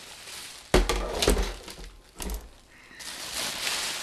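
Bubble wrap rustling as a heavy plastic-cased external hard drive is handled, with a loud thud about three-quarters of a second in and a couple of lighter knocks as the unit is set down. The rustling of the wrap starts again near the end.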